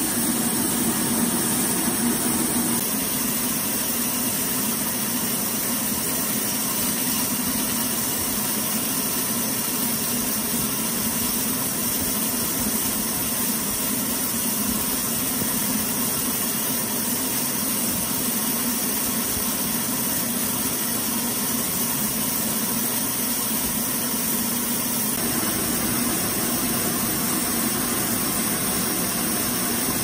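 Horizontal band sawmill running steadily, its blade sawing lengthwise through a large log: a continuous machine hum and whir. The tone shifts slightly a couple of seconds in and again near the end.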